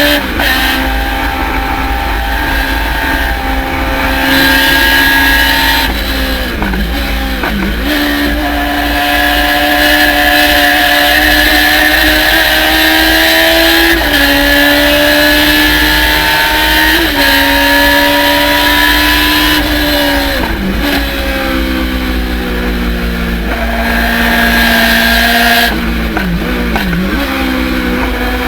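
Thunder Roadster race car engine running hard at speed, its pitch climbing steadily under acceleration. Several times, about six seconds in, around twenty seconds in and near the end, the pitch drops sharply and swings back up as the car brakes and downshifts for corners.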